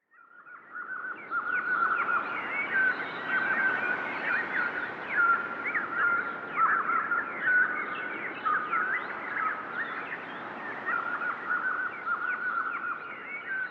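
Dense chorus of many small songbirds chirping and twittering over one another, fading in over the first second or two.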